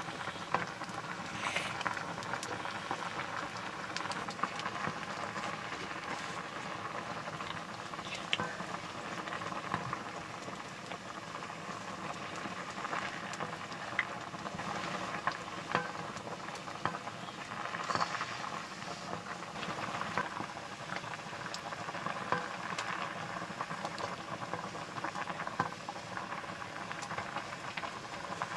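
Nettle leaves boiling in liquid in a black iron wok over a wood fire: a steady bubbling with many small scattered clicks and a few sharper ones.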